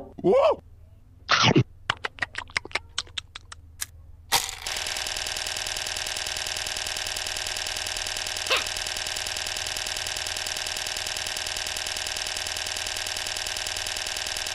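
A couple of short comic sound effects and a run of quick clicks, then from about four seconds in a steady mechanical whirring from a toy gumball slot machine spinning its fruit reels.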